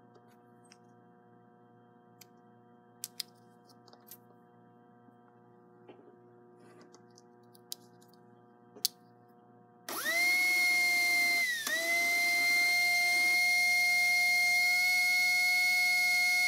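A few light clicks of small parts being handled, then about ten seconds in a slot-car pancake-armature motor starts abruptly and runs at high speed with a steady, high-pitched whine. Its pitch dips once, briefly, just after it starts. This is a test run to check the rewound arm's dynamic balance.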